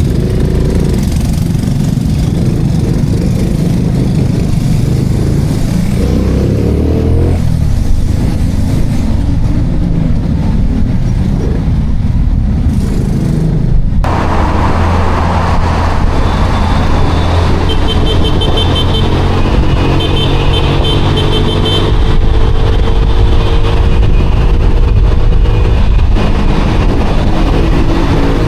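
Small-capacity motorcycle engine running while riding, over heavy road and wind noise; the sound changes abruptly about halfway through.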